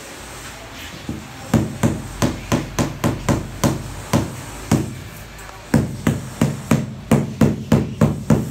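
Rubber mallet tapping a large ceramic floor tile to bed it into the mortar bed and bring it level with its neighbours: about twenty sharp knocks at roughly three a second, in two runs with a short pause between them.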